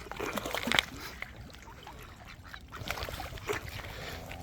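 Ducks quacking in short calls, busiest in the first second, with a few more calls about three seconds in.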